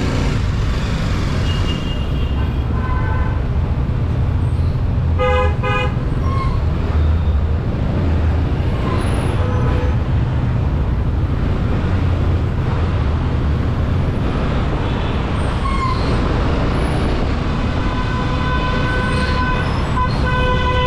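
City traffic heard from a slow-moving motorcycle: a steady low rumble of engine and road noise, with vehicle horns honking again and again. A sharp double honk comes about five seconds in, and a long honk runs near the end.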